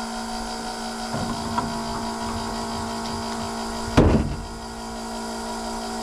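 Pickup truck engine running with a steady hum, and a single sharp thump about four seconds in, after which the lowest part of the hum stops.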